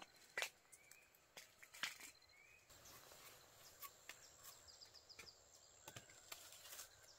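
Quiet outdoor ambience with a few sharp taps and rustles and several short rising bird chirps; a little past the middle, a fast run of high ticks.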